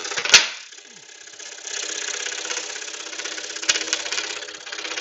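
Axminster scroll saw running and cutting through thick wood, a steady fast buzz from the reciprocating blade. The cutting sound dips for about a second near the start, then picks up again, with two sharp clicks, one near the start and one about three-quarters of the way through.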